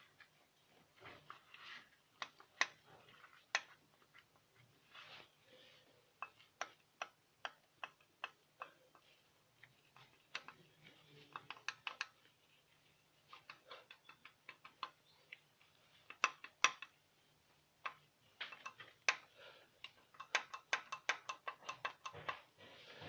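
Sharp metallic clicks and ticks, irregularly spaced and sometimes in quick runs, from the rocker-arm valvetrain of a Jeep Grand Cherokee WJ's 4.0-litre inline-six: the rocker knock being chased, with hydraulic lifters that are stiff and do not compress.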